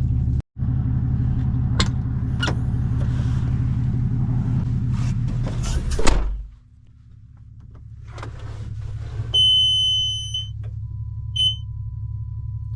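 Truck engine idling, heard from inside the cab, with a few clicks; a door shuts with a loud thump about six seconds in and the engine drops to a quieter hum. Then a high electronic warning beep lasting about a second, and a short second beep.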